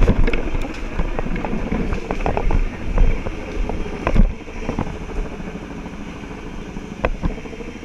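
Helicopter engine and rotor running steadily overhead, a low drone, with wind buffeting the body-worn microphone. Scattered crunches and knocks of footsteps through brush and dead leaves.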